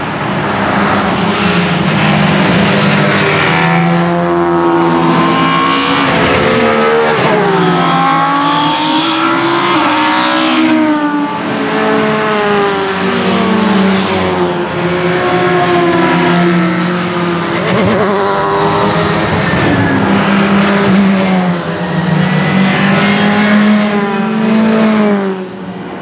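A line of 1990s Super Touring race cars, with 2-litre racing engines, passing on the circuit. Several engines are heard at once, their pitch rising and falling through gear changes, and the sound drops away near the end.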